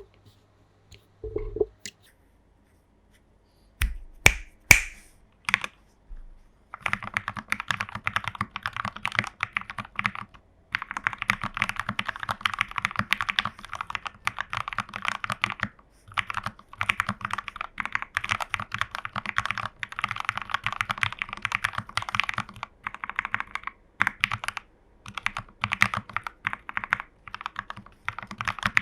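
Typing on a TU40 40% mechanical keyboard built plateless in a plastic case with case foam, PCB foam and a tape mod, fitted with lubed Gateron Pro Milky Yellow linear switches and lubed Owlab stabilizers. A few separate key presses come first, the loudest about four to five seconds in, then steady fast typing with brief pauses.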